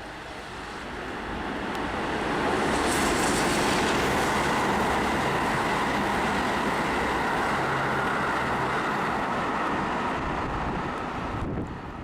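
Electric commuter train running past on the line, a rumbling roar that builds over the first two seconds, holds steady, then falls away near the end.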